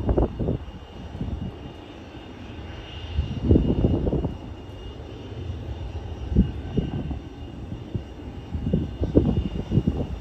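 Jet airliner climbing away after takeoff, its engines a steady distant rumble, with irregular low gusts of wind buffeting the microphone.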